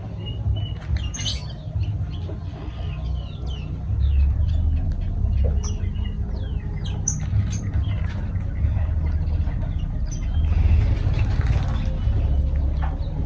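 Lovebirds chirping in many quick, short high calls, thickest in the first half, over a strong steady low rumble.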